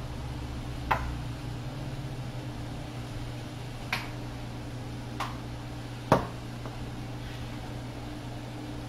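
Steady hum of a kitchen vent fan over the stove, with four sharp knocks from kitchen utensils and containers being handled, the loudest about six seconds in.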